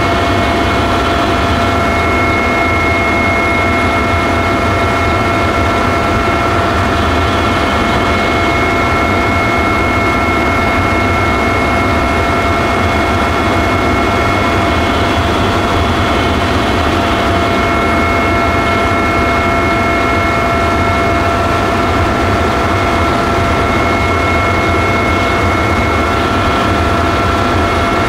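Helicopter in flight, heard from on board: a steady engine and rotor roar with a constant high whine laid over it, unchanging throughout.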